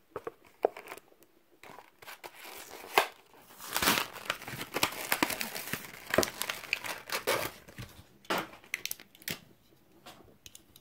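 Packaging of a 1/64 diecast car being torn open by hand: crinkling plastic and tearing card, with a run of sharp clicks and crackles that is busiest in the middle and thins out near the end.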